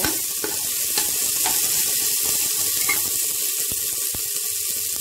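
Chopped vegetables (green peas, carrots, potato, shallots) sautéing in oil in a steel pot: a steady sizzle, with a few faint clicks.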